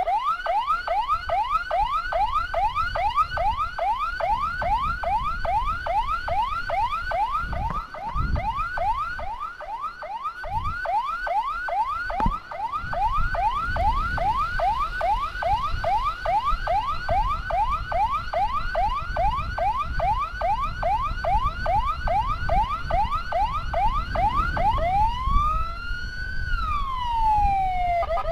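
Electronic siren of an ambulance escort sounding a fast yelp, a rising sweep repeated about three times a second; a little before the end it switches to a slow wail that rises and falls. A low rumble runs underneath.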